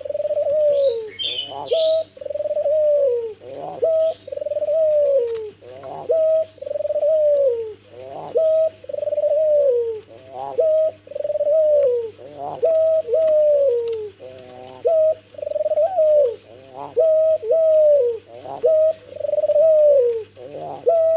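Albino (all-white) Barbary dove, the Indonesian puter, cooing over and over in a steady rhythm, about one coo a second. Each coo opens with a short rising note and then slides down in pitch.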